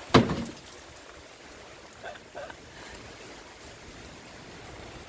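Light rain falling from a passing cloud, a steady soft hiss. It opens with a brief, loud rush of wind on the microphone.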